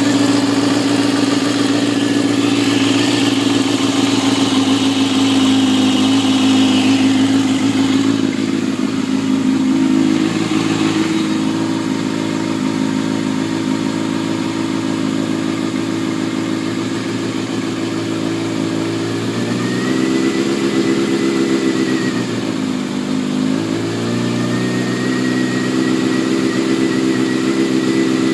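Kawasaki ZX-6R inline-four engine running at a steady idle, then revved up twice in the last third and held raised near the end. A faint high whine rises and falls with the revs. This is a possible candidate for the weird noise the owner is recording.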